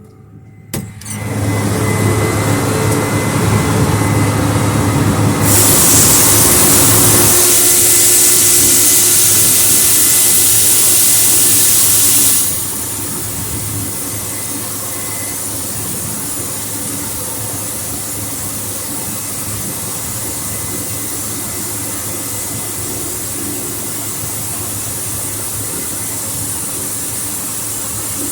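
Case IH 8120 combine running, a steady machine noise with a low hum that starts suddenly about a second in. A loud hissing rushes in on top from about five seconds and cuts off sharply near the middle, leaving the steady running noise.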